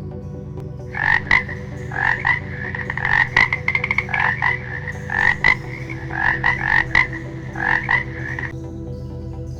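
Frog croaking: a series of rapid, rattling croaks in short groups with brief pauses, starting about a second in and stopping shortly before the end.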